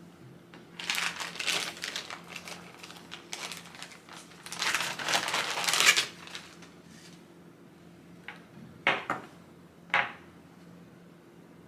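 Packaging crinkling and rustling while microphone parts and adapters are handled, loudest about halfway through, followed by two sharp clicks about a second apart near the end.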